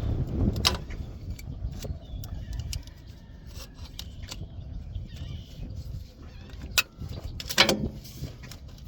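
Hand work on machinery: scattered metal clicks and clinks from tools and parts being handled, with a sharp knock about three-quarters of the way through, over a low steady rumble.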